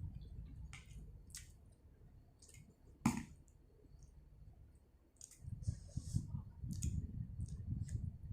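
Close-up eating sounds: scattered wet mouth clicks and smacks, one sharper click about three seconds in, then steady chewing during the last few seconds.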